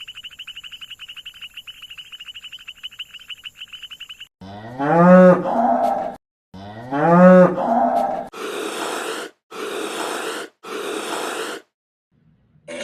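A run of animal sound clips: a fast pulsing buzz for about four seconds, then two long pitched lowing calls that rise and fall, then three short hissing or breathy bursts about a second each.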